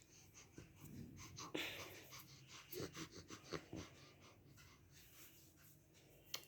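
A baby's faint breathing and small mouth sounds, with a soft breathy rush about one and a half seconds in.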